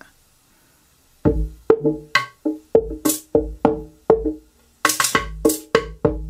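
Drum loop playing back with a flanger modulation delay and a filter on it: quick, woody pitched percussion hits over low thumps, with a few bright hissy hits, starting about a second in and pausing briefly past the middle.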